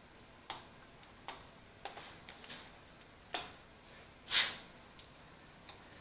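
Light metallic clicks and knocks as a metal governor housing is positioned and seated against an engine block by hand. There are about eight irregular taps, with one louder knock a little over four seconds in.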